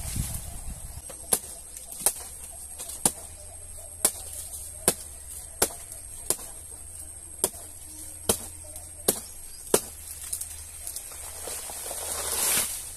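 Machete chopping into a banana plant's trunk: about a dozen sharp strokes, a little more than one a second, which stop about ten seconds in. A swelling rush of noise builds near the end.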